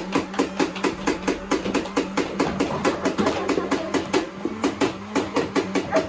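Battery-powered Nerf Rival blaster firing on full auto: a rapid, even stream of shots, about six a second, over the steady hum of its flywheel motors. The firing stops near the end.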